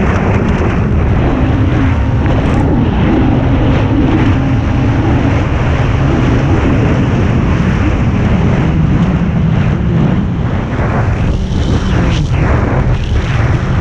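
Kawasaki jet ski running hard, its engine note rising and falling with the throttle under loud wind and water rush on the onboard microphone.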